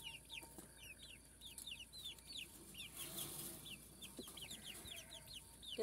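Young chicks peeping faintly: many short, high cheeps that fall in pitch, several a second, with a soft rustle about three seconds in.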